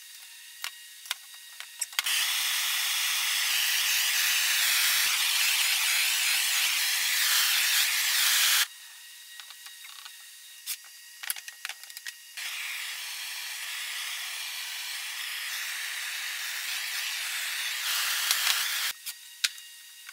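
Hose-fed gas torch hissing steadily in two long stretches, the first the louder, with clicks and scuffs from handling between them.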